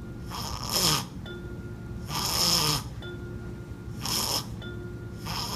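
A person snoring on purpose for a baby: four short, noisy snores about two seconds apart.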